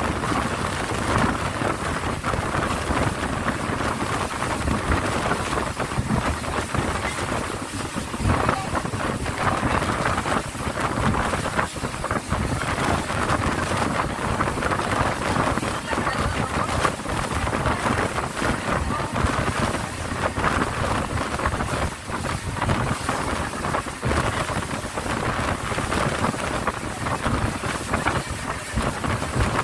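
Steady wind buffeting the microphone over the running engine and rushing water of an open speedboat under way at speed.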